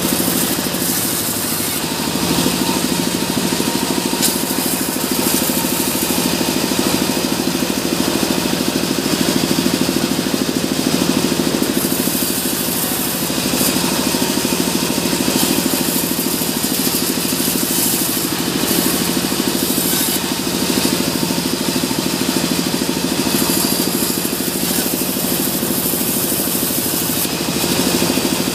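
Sawmill bandsaw running steadily while its blade rips lengthwise through a short log, a constant machine drone with a hissing cutting noise over it.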